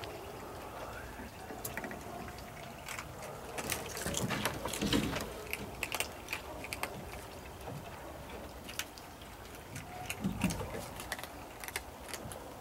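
Several cats eating dry kibble off plates: many quick, irregular small crunches and clicks. A couple of dull thumps stand out about four to five seconds in and again near ten seconds.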